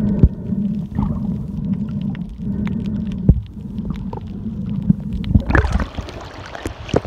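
Underwater reef crackle: scattered sharp clicks, typical of snapping shrimp, over a steady low hum. About five and a half seconds in, the microphone breaks the surface and the sound turns to splashing water and wind rush.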